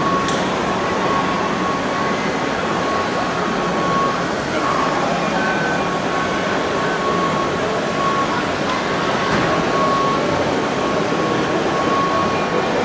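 Steady din of a crowded hall with people talking, and a thin high tone that sounds on and off throughout.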